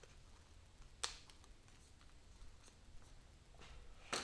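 Small carabiners being handled and opened: a sharp metallic click about a second in, a few light ticks, and a louder click near the end.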